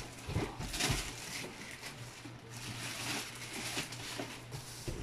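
Plastic wrapping rustling and crinkling as a bagged appliance is handled and lifted out of its cardboard box, with a couple of soft knocks in the first second.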